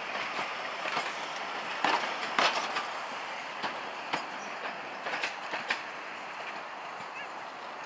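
Heritage railway passenger coaches rolling slowly past, their wheels clacking over the rail joints in pairs about half a second apart, over a steady rumble of the train. The sound fades as the last coach goes by.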